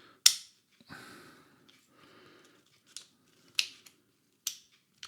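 Sharp clicks and a scraping slide of a Glock 17 Gen 4 CO2 BB pistol's slide being worked along its freshly greased frame rails, about five clicks with the loudest just after the start. The slide still sticks a little.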